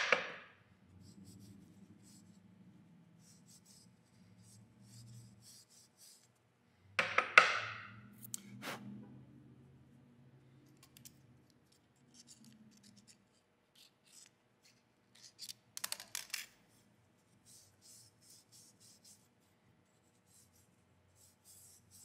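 Small knife blade scraping and picking dust out of the threads of a steel ER32 collet nut: a string of faint scratches and ticks, with louder rubbing swishes about seven and sixteen seconds in.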